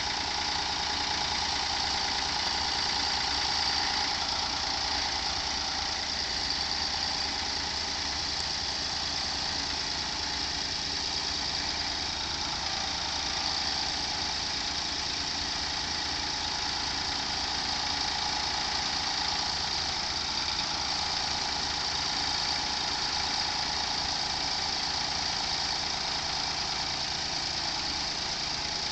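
Daihatsu Move (L175S) kei car's three-cylinder 660 cc engine idling steadily.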